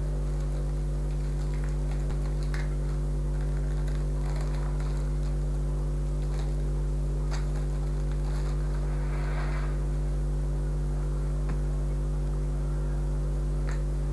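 Steady electrical mains hum at 50 Hz, with a few faint clicks and a short rustle about nine seconds in.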